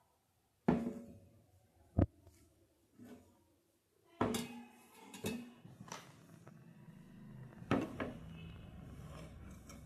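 Mixer grinder jars and parts being handled and set down: several sharp knocks and clunks, with rustling and scraping between them.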